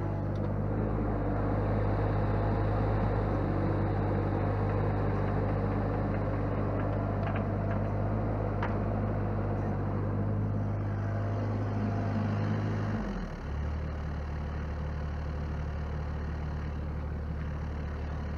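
Mini excavator's diesel engine running steadily while the machine turns round on its tracks, the machine still cold. About thirteen seconds in the engine note drops to a lower, steady pitch.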